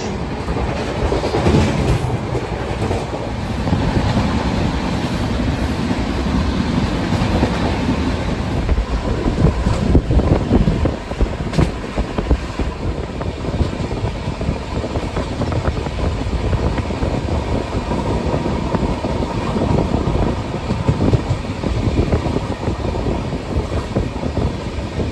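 Passenger train running at speed, heard from inside a coach: a steady rumble of the wheels on the rails broken by frequent irregular knocks.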